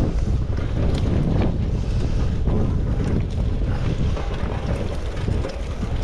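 Wind buffeting the microphone while riding a bicycle, a steady loud low rumble mixed with tyre-on-road noise. A few light ticks and rattles from the bike come through about a second in.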